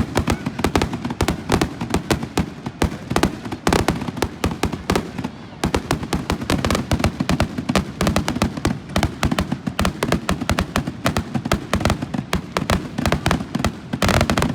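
Fireworks going off in a rapid, dense run of sharp cracks and pops, many a second. There is a short pause about five seconds in and a thicker cluster of cracks near the end.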